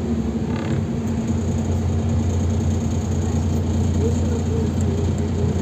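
Inside the cabin of a NefAZ 5299 city bus under way: the steady drone of its Cummins ISBe diesel engine, with road noise.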